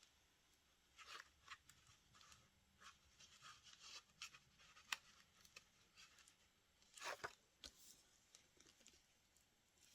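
Faint rustling and scratching of paper being handled and rubbed down by hand, with scattered light ticks and a louder rustle about seven seconds in.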